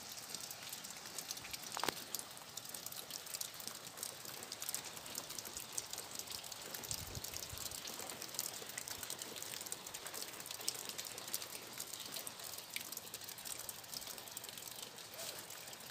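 Faint, steady patter of wet snow and melt drips landing, over a low hiss, with one sharper tick about two seconds in.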